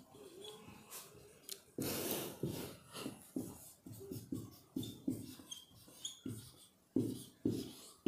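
Writing on a board: a string of short scratchy strokes, about two a second, the strongest about two seconds in, with a few faint squeaks.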